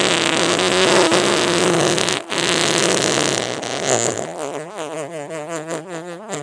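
A long, exaggerated cartoon fart sound effect. For about four seconds it is loud and raspy, with a brief break just after two seconds. It then trails off into a wavering, sputtering pitch that wobbles up and down.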